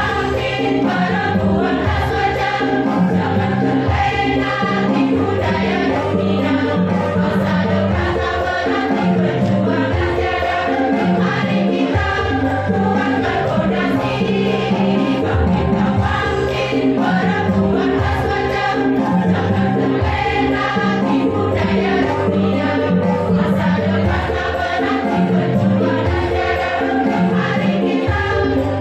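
Women's choir singing a hymn together, over instrumental accompaniment with a steady, repeating bass line.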